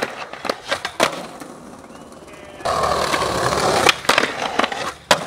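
Skateboard on granite: several sharp clacks of the board hitting the stone ledge in the first second. About two and a half seconds in, the wheels roll loudly over paving stones, followed by another run of clacks as the board strikes the ledge and ground.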